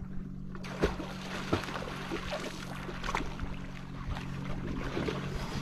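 Lake water splashing and lapping in irregular small splashes, over a steady low hum.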